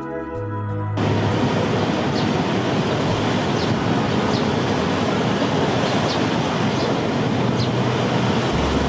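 Waterfall's falling water rushing steadily, cutting in suddenly about a second in. A few faint short high chirps sound now and then over it.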